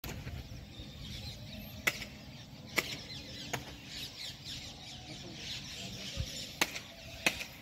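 A flock of small birds chirping busily in the tree, with a handful of sharp clicks or knocks spread through it.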